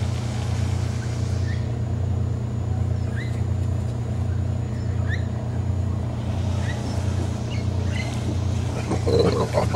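A steady low motor hum, like an engine or generator running, with a few short rising chirps over it and a brief louder burst of sound near the end.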